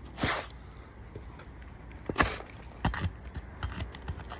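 A flat steel pry bar worked under old 3-tab asphalt shingles: a short gritty scrape just after the start, then a few sharp clicks and taps of metal against shingle.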